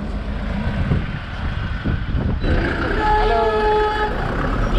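Street ambience of a town: traffic and a steady low rumble of wind on the microphone. A held, slightly wavering tone at several pitches sounds from about three to four seconds in.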